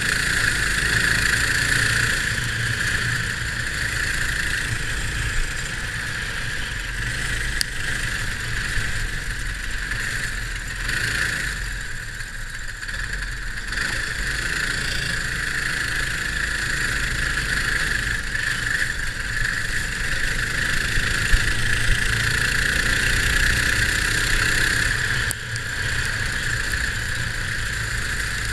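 Sealed Predator single-cylinder go-kart engine running at racing speed, heard close up from on board. The sound eases off briefly about twelve seconds in, then picks up again.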